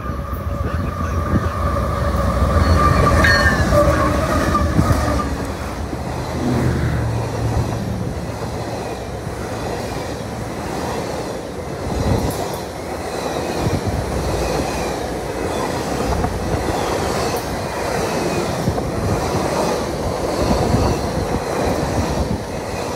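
Two BNSF GE ES44C4 diesel locomotives pass close at speed, then a string of stainless-steel passenger cars rolls by with a steady rattle and clickety-clack of wheels on the rails. A steady high tone is heard in the first few seconds, and the heavy engine rumble is loudest a few seconds in, as the locomotives go by.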